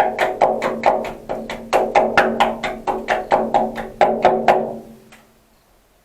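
Rapid hammer blows on ringing metal, about four to five a second, each leaving a short ringing tone; the hammering stops about four and a half seconds in.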